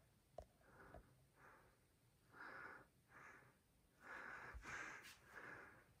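Near silence with faint, irregular breathing and sniffing close to the microphone, and two small clicks in the first second.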